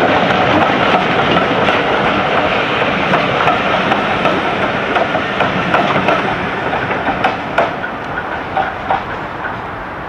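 Train of passenger coaches rolling past and away, its wheels clacking over the rail joints. The rumble slowly fades, and the clacks come further apart toward the end.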